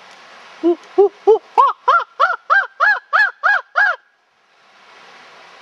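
A chimpanzee-style hooting call meant to lure howler monkeys: about eleven short hoots, each rising and falling, about three a second, climbing in pitch, then cutting off suddenly.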